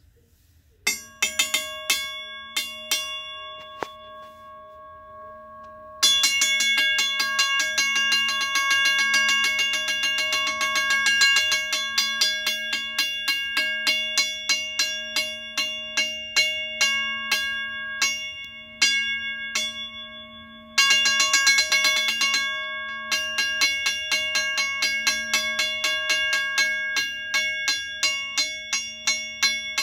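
Western Railroad Supply Co. mechanical railroad crossing bell's gong being dinged by hand with a small object, because the bell's inner striking mechanism is destroyed. It rings with one clear tone and several overtones: first a few strikes left to ring down, then quick repeated taps that keep it ringing, with one brief break partway through.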